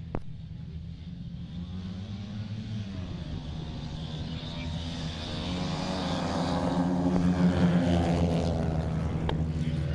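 A pack of longtrack racing motorcycles with single-cylinder engines accelerating hard away from the start. The bikes sweep past close by, getting louder and loudest about seven to eight seconds in, their engine notes bending in pitch as they go by.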